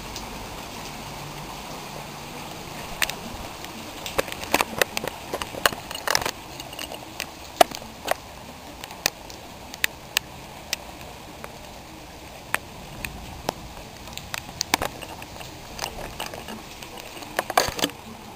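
Heavy rain falling steadily on a flooded street, with many irregular sharp ticks and taps from about three seconds in, clustering again near the end.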